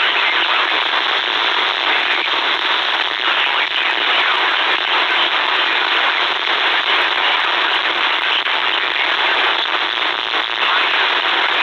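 Steady static hiss with frequent crackles from a C. Crane CC Skywave SSB portable radio's speaker, tuned to a weak NOAA Weather Radio signal on 162.425 MHz.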